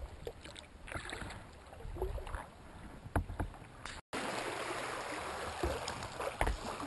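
Kayak paddling in shallow water: paddle splashes and drips, with a couple of sharp knocks a little past three seconds in. After a brief cut-out about four seconds in, a steady rushing hiss of water comes up as the bow nears the sandy shore.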